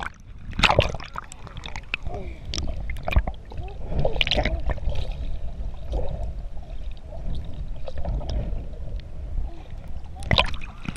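Lake water sloshing and gurgling around a waterproof action camera as it dips under the surface and comes back up, with many sudden splashes over a low rumble.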